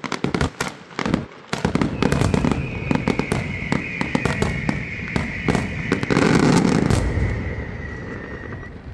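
A dense barrage of fireworks and firecrackers going off in rapid bangs. From about two seconds in, a high steady whistle runs through it, sinking slightly in pitch. The bangs build to their loudest about six seconds in and then thin out.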